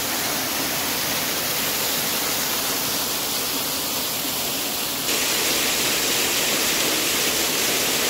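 Waterfall pouring over rock: a steady rushing hiss of falling water, which turns slightly brighter about five seconds in.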